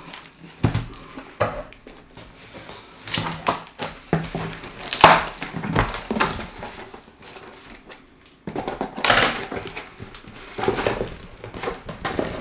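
Cardboard parcel box being pulled and torn open, its flaps and packing tape ripping, crinkling and scraping, with scissors cutting through the box partway through. The sounds come in irregular bursts, the loudest rip about five seconds in.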